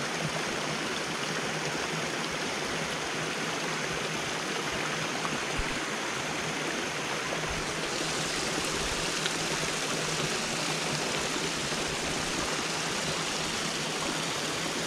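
Rocky woodland stream rushing steadily over stones and small cascades. The rush turns brighter and hissier about eight seconds in.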